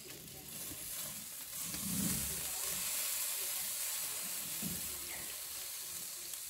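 Marinated whole chicken sizzling on a charcoal grill grate, a steady hiss, with a couple of soft knocks as metal tongs handle it.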